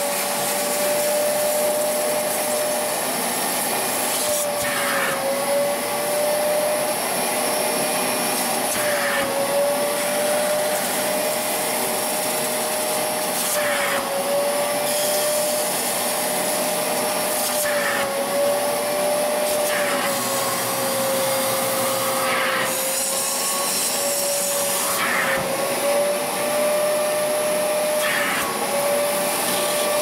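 Wet extraction vacuum with a wide upholstery nozzle sucking water and loosened dirt out of a cloth car seat. Its motor gives a steady whine that wavers slightly over a dense hiss of suction, with a brief surge of hiss every four or five seconds.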